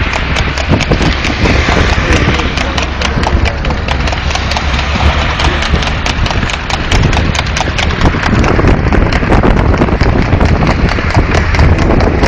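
A horse's hooves clip-clopping in a rapid run of sharp strikes, over a steady low rumble.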